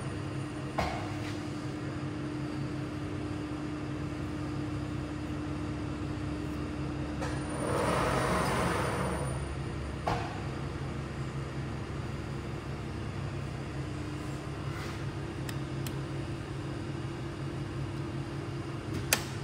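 Polar 155 ED guillotine paper cutter running with a steady hum. About eight seconds in comes a two-second swell of louder rushing noise that ends in a click, with single sharp clicks near the start and near the end.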